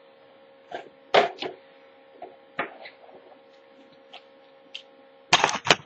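Handling noises as a pocket survival kit is picked up and opened: a scattering of short rustles and knocks, the loudest cluster near the end, over a faint steady hum.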